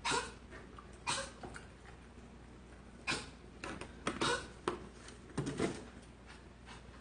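Pomeranian dog making short, sharp barks or yips, about six times in a few seconds.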